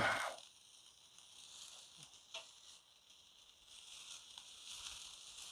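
Chicken wings sizzling on a charcoal grill: a steady high hiss with scattered sharp pops and crackles. A short knock right at the start.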